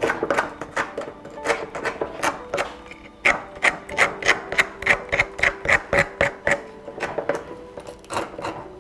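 Short scraping strokes of a wooden-handled tool stripping bark from a freshly cut Japanese white pine branch to form a jin. The strokes are uneven at first, then come about three a second and are loudest in the middle stretch. Soft background music plays underneath.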